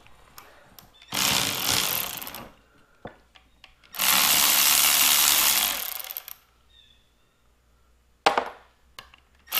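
Cordless impact driver with a Torx bit running in bursts, backing out the bolts of a Ford 6.0 Powerstroke oil cooler housing: a burst of about a second and a half, a longer one of about two seconds, and a short one near the end.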